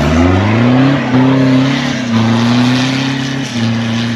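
Toyota Hilux pickup engine revving up hard as the truck pulls away across loose sand toward the dune, then held at high revs with a few brief dips in pitch.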